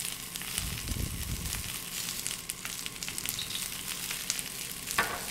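Hot oil sizzling with a steady scatter of small crackles in pans where bok choy is sautéing in oil and butter, with a brief low rumble about a second in.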